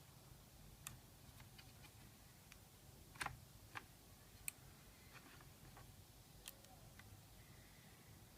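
Faint, scattered clicks and light taps, about five of them spaced irregularly, from small parts and a tool being handled on a laptop's plastic casing during disassembly.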